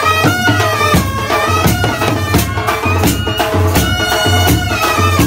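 Intro music: a held, reedy melody of sustained notes over a steady drum beat and pulsing bass.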